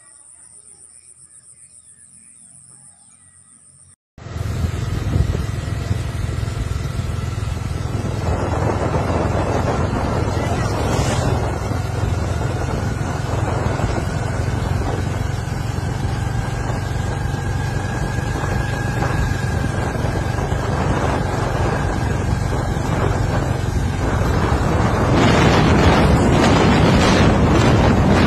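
Strong storm wind buffeting the microphone over rough surf: a loud, steady rush with a deep rumble. It starts abruptly after a few quieter seconds and grows louder near the end.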